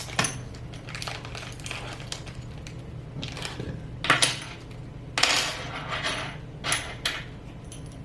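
Small metal parts of a clamp-on sling mount clinking and clattering as they are handled and set down on a desk. A run of sharp clicks, with louder clatters about four, five and seven seconds in.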